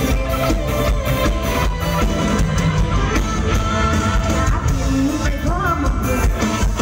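Live Thai Isan band music with a steady beat, a voice singing over it.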